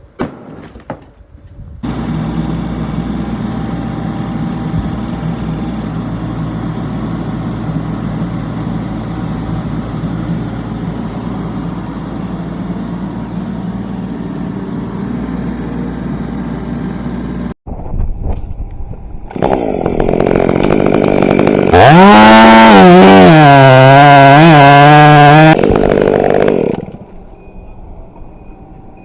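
Chainsaw at full throttle cutting timber for about five seconds, its pitch dipping and recovering as the chain bites, then falling away. Before it, a steady low engine runs for about fifteen seconds.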